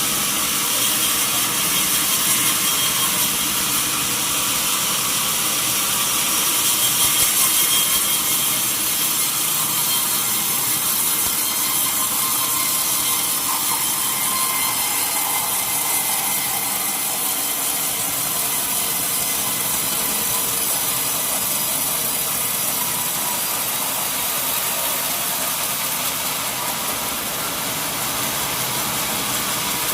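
Sawmill saw cutting through a mahogany log, a steady dense rush of noise with the mill's machinery running under it, briefly a little louder about seven seconds in.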